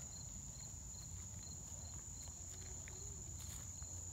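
Insects chirping outdoors: a steady high trill with a fainter chirp repeating a little over twice a second, over a low rumble.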